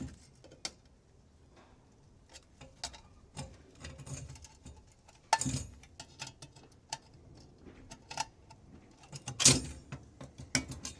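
Irregular clicks and taps of small metal and plastic parts being handled and pried apart while a component holding copper wire coils is taken apart, with two louder clatters, about five and nine and a half seconds in.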